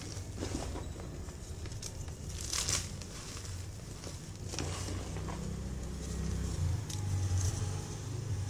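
Reformed gym chalk crumbling and crunching as hands squeeze it into powder, with scattered crisp crackles.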